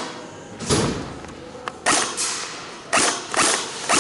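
Airsoft gunfire during a game: about six sharp, hissy cracks at uneven spacing, several of them in close pairs, the first with a heavier thud.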